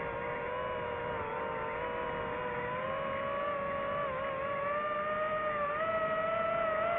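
DJI FPV drone's motors and propellers whining steadily in flight, the pitch wavering with throttle and rising a little in the second half as the sound grows louder.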